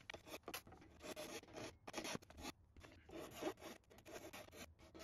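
A flat file rasping against a small brass boss in short, repeated strokes, roughly two a second, taking metal down by hand.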